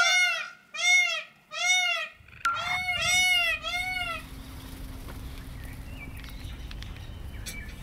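Indian peafowl (peacock) calling: loud, arching wails, the first three about a second apart, then a quicker run of four or five that ends about four seconds in. A sharp click comes about two and a half seconds in, and a low steady rumble follows the calls.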